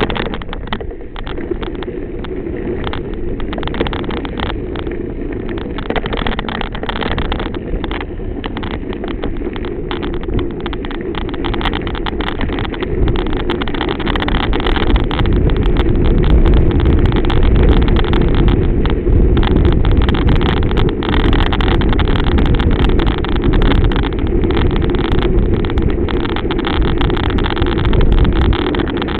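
Wind rushing over the microphone of a camera riding along a gravel track, with a steady low rumble and many small crackles and rattles from wheels rolling on the gravel. The rumble grows louder about halfway through.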